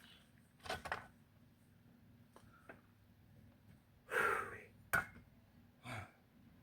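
A few scattered short scrapes and knocks with quiet between them, the loudest a brief rasp about four seconds in followed at once by a sharp click.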